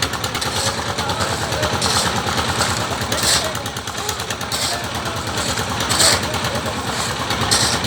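Engine of a concrete mixer machine running steadily, with short high hissing or scraping bursts recurring about every second or so over it.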